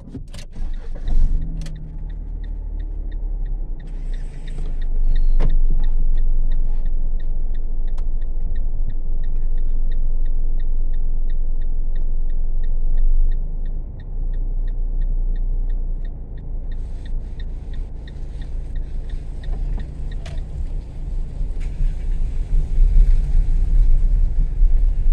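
Small car's engine running, heard from inside the cabin, with the turn-signal indicator ticking steadily at about three ticks a second. The ticking stops after about 16 seconds, and road and tyre noise rises as the car drives off.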